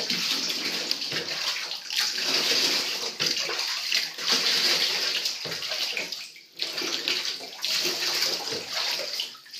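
Tap water running and splashing steadily while a Pomeranian puppy is rinsed in her bath, with a short break in the flow about six seconds in.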